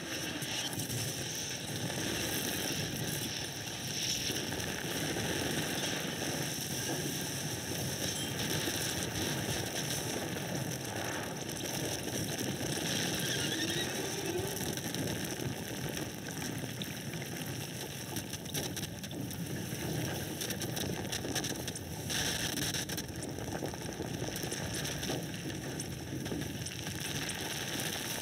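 Electroacoustic storm composition played back over a hall's loudspeakers: a dense, unbroken wash of wind and water recordings, with violin and horn sounds tossed through it and a few gliding tones.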